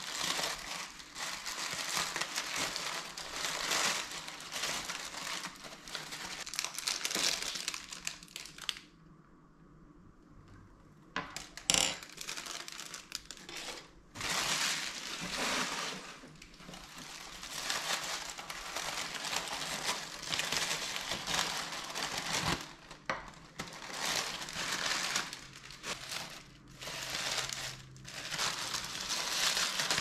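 Honeycomb kraft-paper packing crinkling and rustling as it is pulled apart by hand. There is a short lull about nine seconds in, a sharp click near twelve seconds, and then the crinkling resumes.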